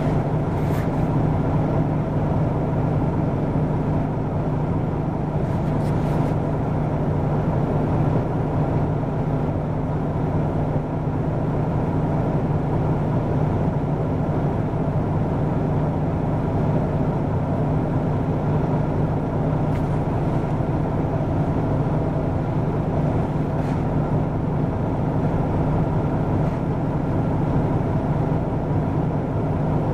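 Hino Rainbow II (PDG-KV234N2) diesel city bus running with a steady, even engine drone and road noise, the revs neither rising nor falling. A few faint light ticks come through now and then.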